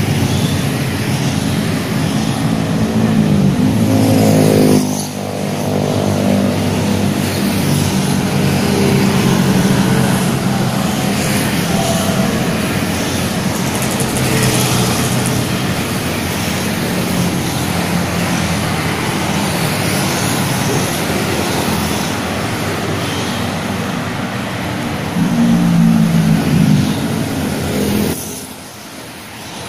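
Road traffic going by close at hand: motorcycles and cars passing one after another, their engine notes rising and falling with each pass. A louder pass comes near the end, then the sound drops off briefly.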